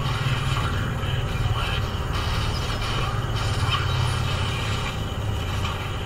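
Mobile battle-game audio: a dense run of combat sound effects, with hits and spell effects, over a steady low rumble.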